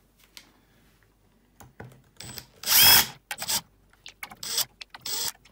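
Small electric screwdriver whirring in one loud run of just under a second, about two and a half seconds in, followed by several shorter runs and clicks: backing out the screws to open an HP server power supply's casing.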